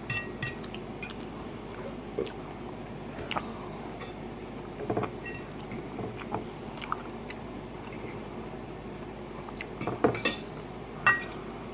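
Cutlery clinking and scraping against a plate of chili and rice during eating, in short scattered strikes, with a few louder clinks near the end.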